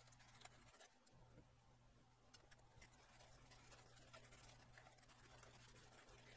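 Near silence: faint rustling and light scratching of a paper towel rubbed over a mica insulator to clean off old heatsink compound, over a low steady hum.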